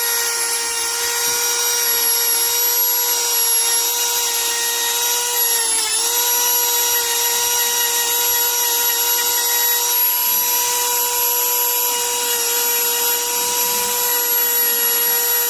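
Dremel rotary tool running at a steady high speed against the rusty pliers, working off the rust: a loud high-pitched whine whose pitch dips briefly about six seconds in as the tool bears in.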